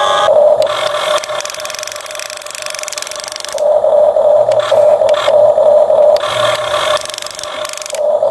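Small electric motor and gears of a toy excavator whirring in spurts, starting and stopping several times, with a rattling, scraping stretch about a second in.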